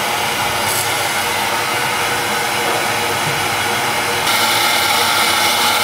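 Submerged-arc welding rig running, its flux suction blower making a steady rushing noise that steps up slightly in level about four seconds in.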